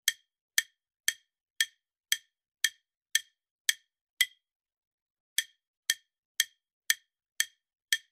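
Quiz countdown timer ticking: short sharp clicks, about two a second, with a pause of about a second halfway through.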